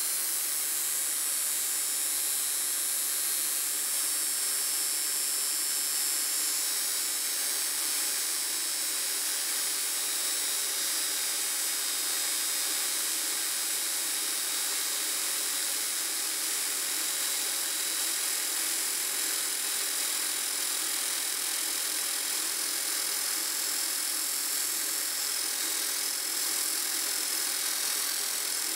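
Angle grinder with a flat disc grinding the end of a steel bolt that spins in a drill press chuck, roughing a point onto it. A steady, high-pitched grinding.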